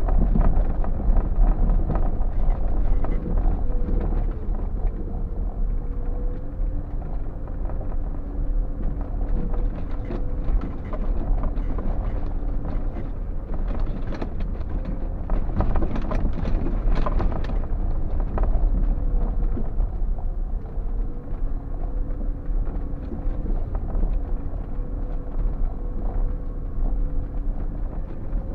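Vehicle driving slowly along a rough gravel track, heard from inside the cabin: a steady engine drone over the rumble and crunch of tyres on stones, with a spell of harder rattling and knocking about halfway through.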